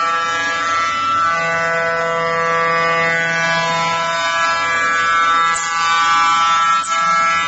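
Five-axis CNC router spindle whining steadily as its cutter mills a solid wood workpiece; the pitch shifts slightly a couple of times as the head moves.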